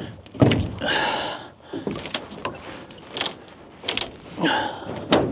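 Wooden shipping-crate boards being pried apart and handled: a series of sharp knocks and clatters, with short creaks about a second in and again near the end.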